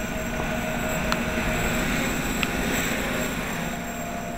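Home-built 550-size quadcopter's electric motors and 8x5 propellers buzzing in flight. The sound grows louder toward the middle, then eases off as the craft moves away.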